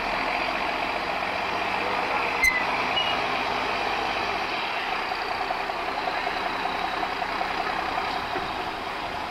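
MAN off-road trial truck's diesel engine running steadily under load as the truck crawls over a steep, tilted dirt section, with a single sharp knock about two and a half seconds in.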